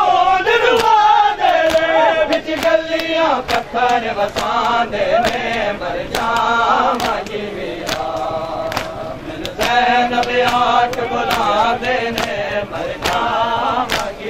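A group of male mourners chanting a noha lament together while beating their chests in matam. The hand-on-chest slaps fall in a steady beat a little faster than once a second.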